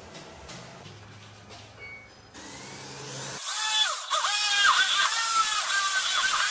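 DeWalt cordless drill boring into a steel square tube, starting about halfway through: a loud, high whine that dips and climbs back again and again as the bit bites into the metal.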